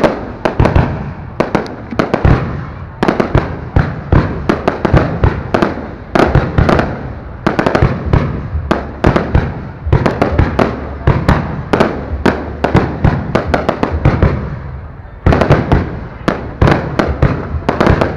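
Aerial fireworks display: dense volleys of sharp bangs and crackling shell bursts in rapid succession, broken by a few short lulls.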